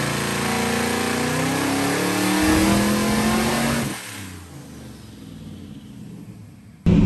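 Twin-turbo 427 cubic-inch LS V8 in a 1961 Buick Skylark running on a hub dyno, revving up under full throttle with its pitch rising steadily: a short first pull on wastegate boost only, about 6 psi, to roughly 5,500 rpm. About four seconds in it lifts off and winds down much quieter, then just before the end the engine is suddenly loud again.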